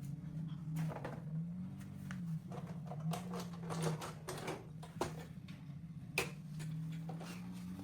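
Irregular clicks and taps, several in quick runs, over a low steady hum.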